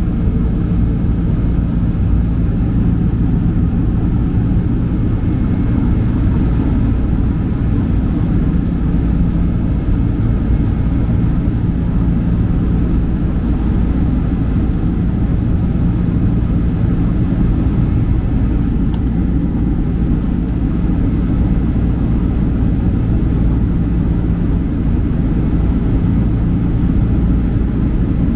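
Steady roar of a Boeing 767-300's twin jet engines and rushing air, heard inside the cabin while the airliner climbs after takeoff, with a low steady hum running underneath.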